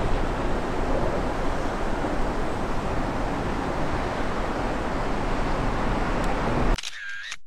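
Steady outdoor rushing noise with a deep rumble, which cuts off abruptly near the end.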